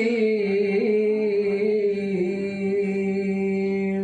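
A Qur'an reciter's voice holds one long, nearly level note that wavers slightly, then stops abruptly near the end. It is the drawn-out closing "al-'azim" of "sadaqallahul 'azim" that ends the recitation.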